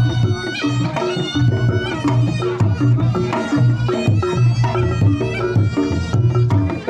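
Reog Ponorogo ensemble playing: a slompret (reed shawm) carries a wavering, gliding melody over steady kendang drum strokes and short repeated pitched percussion tones.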